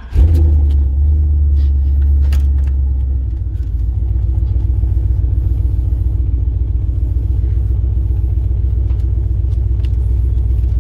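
GM LS V8 in a 1992 Chevy pickup starting up, catching almost at once at a fast idle. It settles to a lower, steady idle about three seconds in. Heard from inside the cab.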